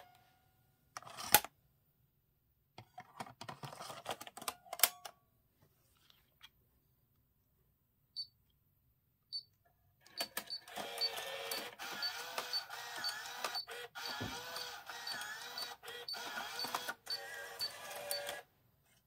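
Motorised sliding 3D Shuttle CD changer of an Alpine 3DA-W880E car head unit running through its mechanism. A few scattered clicks and two short beeps come first, then about eight seconds of motor whirring with a regular high tick, which cuts off shortly before the end.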